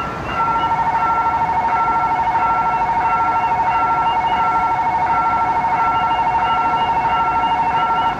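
Railway level-crossing warning alarm sounding: a high electronic ding repeats about every 0.6 s. About half a second in, a continuous warbling two-note tone joins it and cuts off just before the end.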